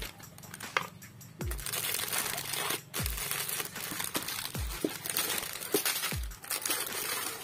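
Plastic wrappers of small chocolate wafer bars crinkling and rustling as hands dig into a plastic tub and tip the bars out, starting about a second and a half in. Underneath is background music with a deep bass beat about every second and a half.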